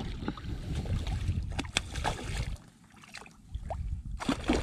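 Hooked redfish splashing and thrashing at the water's surface beside a skiff, over a low rumble that drops away for about a second around two-thirds of the way through.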